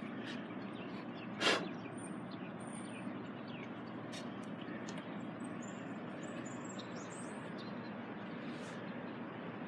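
Outdoor ambience with a steady background hiss, and small birds chirping in short high calls near the start and again about two-thirds of the way through. A single sharp knock sounds about a second and a half in.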